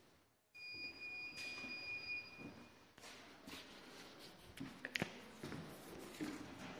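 Footsteps on a wooden floor, soft knocks roughly every two-thirds of a second, with a sharp click about five seconds in. A steady high tone sounds for about two seconds near the start.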